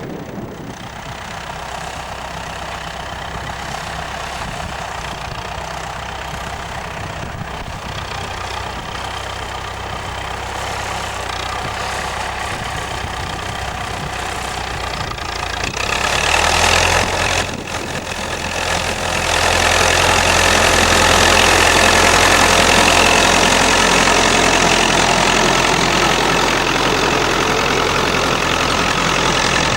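Massey-Ferguson 65 tractor engine running steadily, growing louder a little past halfway with a brief surge and a short dip, then holding at the louder level.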